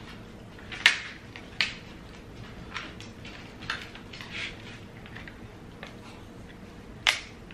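Table eating noises over a seafood platter: a handful of sharp clicks and cracks from utensils and shellfish, the loudest about a second in and again near the end, with quieter mouth sounds between.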